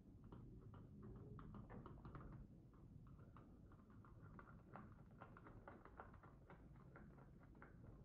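Faint small metal clicks and scrapes, several a second and irregular, from a long screwdriver turning a screw deep inside an Ingersoll lever padlock's body during disassembly.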